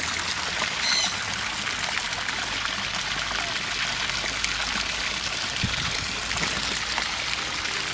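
Water trickling and running steadily, like a small pond water feature, with a brief high chirp about a second in.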